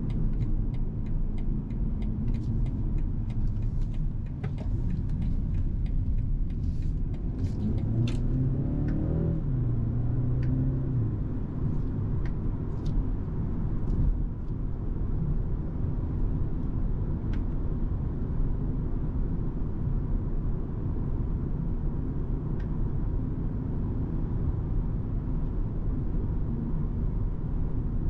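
Inside the cabin of a 2021 BMW 228i Gran Coupe on the move: the 2.0-litre turbocharged four-cylinder and tyre noise make a steady low drone. About eight seconds in the engine note rises for a couple of seconds as the car accelerates, then levels off. A few light clicks are scattered through the first several seconds.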